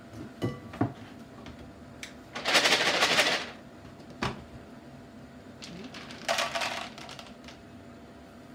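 Dry dog kibble rattling and clattering in a plastic storage container and being tipped into a plastic measuring cup, with plastic clicks and knocks from handling the container and its lid. The rattling comes in two spells: about a second long starting two and a half seconds in, and a shorter one a little past six seconds.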